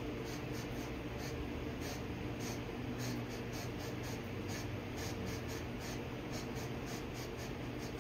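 Electrostatic powder-coating gun spraying powder: a steady hum and hiss with light, irregular ticking over it several times a second.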